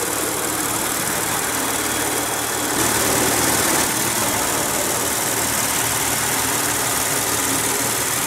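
Maserati Ghibli's Ferrari-built 3.0-litre twin-turbo V6 idling steadily, heard from the open engine bay. A brief louder rush of noise comes about three seconds in.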